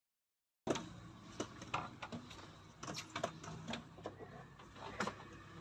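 Faint scattered clicks, knocks and rustling of hands working in a car's stripped cabin, starting under a second in after a brief dead silence.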